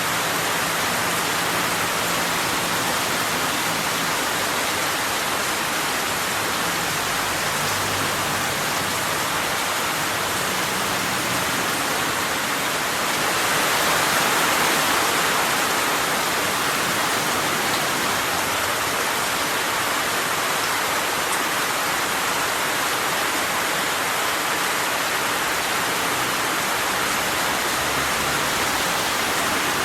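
Steady rain falling, an even hiss of many drops with no separate drips standing out, growing a little louder about halfway through.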